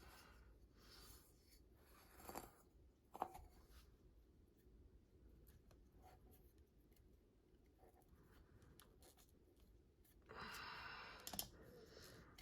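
Faint handling noises from hands working at a ceiling fan motor and its wires: soft rustling and scraping with a sharp click about three seconds in, and a longer scraping rustle about ten seconds in.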